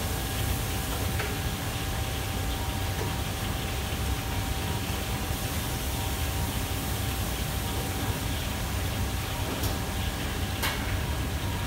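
Steady roar of a commercial kitchen's wok range burners and overhead extraction hood, with a thin steady whine running through it and a couple of light knocks near the end.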